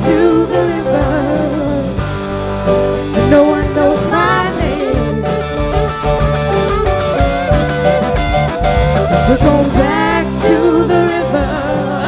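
A live rock band plays with female lead vocals over electric guitars, bass, keyboard and drums.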